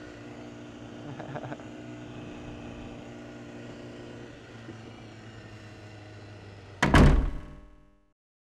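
BMW S1000RR engine running at low, steady revs, with a few light clicks about a second in. Near the end comes one loud thump with a ringing tail, and the sound then fades away to silence.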